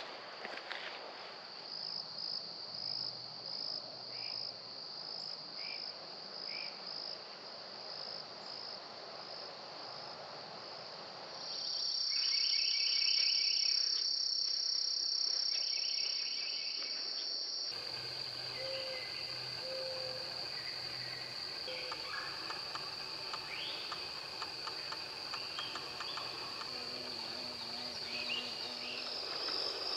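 Insects trilling in a continuous high tone, pulsing about twice a second at first, with scattered short bird chirps. The sound changes abruptly twice where the footage cuts between recordings.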